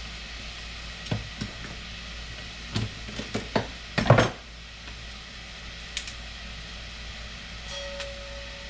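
Spiny lobster tail shell being cut and pried open on a plastic cutting board: an irregular series of sharp cracks and clicks, the loudest cluster about four seconds in.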